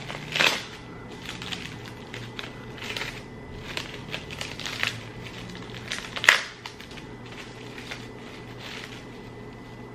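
Clear plastic wrap crinkling and crackling as it is pulled and peeled off a wrapped piece of jackfruit, in a string of short rustles, the loudest about half a second in and about six seconds in.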